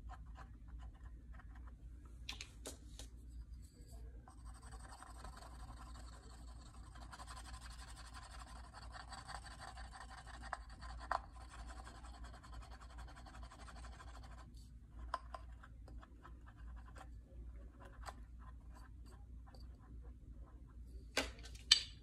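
Edge of a leather sheath being rubbed while it is slicked with gum tragacanth: a steady scratchy rubbing for about ten seconds from about four seconds in, with scattered small clicks of handling. Two sharp knocks near the end.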